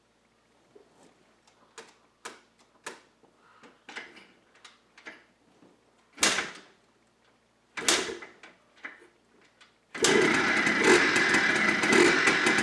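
Yamaha Blaster two-stroke single-cylinder engine being kick-started: a few light clicks and knocks, two kicks that don't catch, then about ten seconds in the engine fires and runs loud with a fast, even pulse. This is its first start after a transmission and bearing rebuild.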